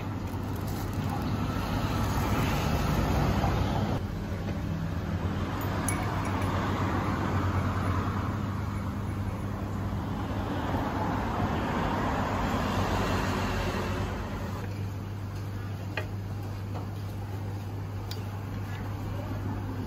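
Road traffic: a steady low engine hum, with vehicles swelling past and fading three times.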